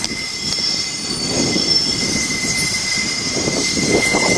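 InterCity 125 High Speed Train with Class 43 diesel power cars moving off, a steady high whine over a rumble that grows louder as the train comes closer.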